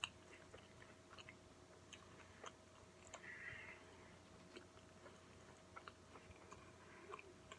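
A person chewing a mouthful of burger with the mouth closed: faint, soft mouth clicks throughout, with a brief faint high-pitched sound a little over three seconds in.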